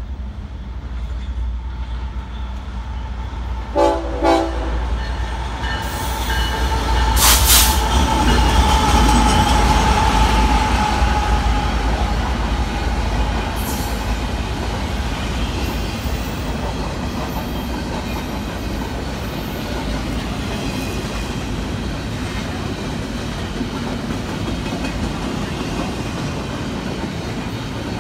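Train led by two diesel locomotives approaching and passing: two short horn blasts about four seconds in, a long high steady tone as the locomotives go by loudest, then the steady rumble and clickety-clack of the cars rolling past.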